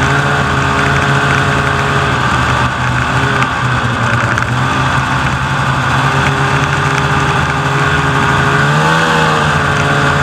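Snowmobile engine running steadily on the trail, its pitch rising and falling briefly near the end.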